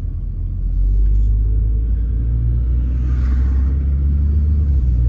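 Low, steady rumble of a car driving, heard from inside the cabin: engine and road noise, getting a little louder under a second in. A brief hiss about three seconds in.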